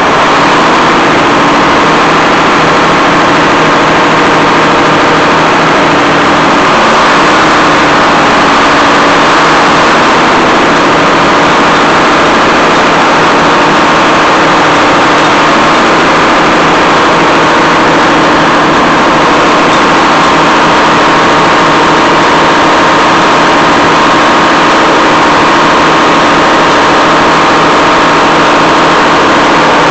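Detroit Diesel 6-71 two-stroke inline-six diesel running loud and steady, shortly after a cold start.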